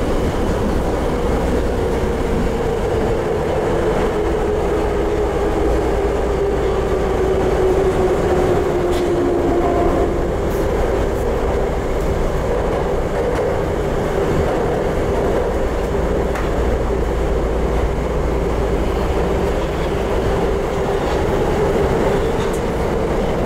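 Tokyo Metro 02 series subway car with Toshiba IGBT-VVVF traction control, heard running from inside the car: a whine from the traction equipment over the rumble of the wheels on the rails. The whine falls slowly in pitch over the first ten seconds and then holds steady, with a few faint clicks along the way.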